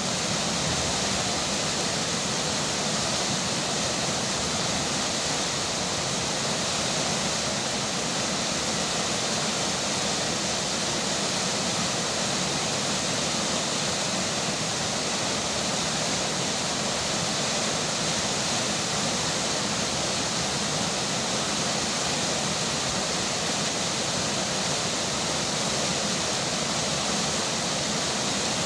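Steady rush of flowing river water mixed with falling rain, an even hiss with no breaks or changes.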